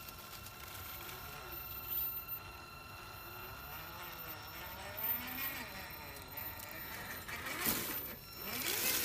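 Traxxas TRX-4 G500 RC crawler's electric motor and drivetrain whining as it crawls, the pitch rising and falling with the throttle over a steady high tone, growing louder and noisier near the end.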